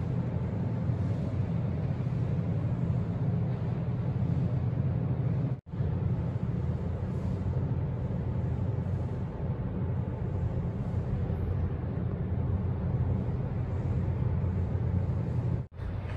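Steady low rumble and hum of an underground car park's background noise, cut off briefly twice: about five and a half seconds in and near the end.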